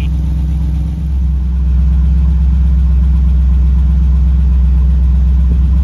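1972 Mercedes 350 SL's fuel-injected 3.5-litre V8 idling steadily at a warm idle of about 600 rpm. It gets louder about a second and a half in and then holds even. Its D-Jetronic mixture is set rich, reading almost 6% CO at idle.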